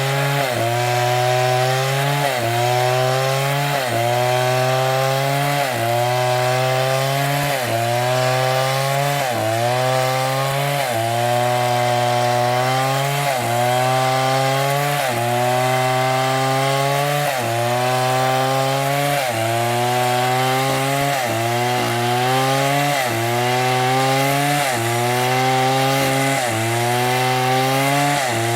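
Stihl chainsaw cutting wood under load, its engine pitch dropping sharply as it bogs in the cut and then climbing back, over and over about every second and a half to two seconds.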